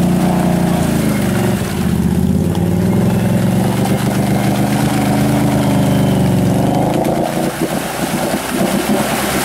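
ATV engine running hard under load while stuck in deep mud. Its pitch drops about a second and a half in, then holds steady. Near the end the sound turns rough and uneven as the wheels churn and mud splashes while the machine is worked free.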